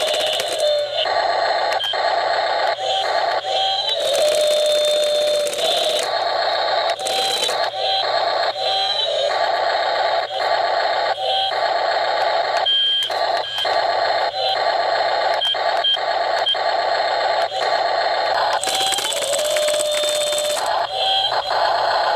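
Small electric hammer breaker on a 1:16 Double E RC excavator chattering rapidly against ice as it breaks it up, a fast buzzing rattle with a steady high motor whine. It stops and starts in short bursts, with two harsher stretches, one early on and one near the end.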